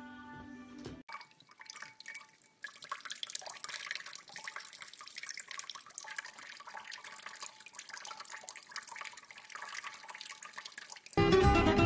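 Water from a sink tap running and splashing onto a cat's head. Music ends with a cut about a second in, and loud plucked-string music starts just before the end.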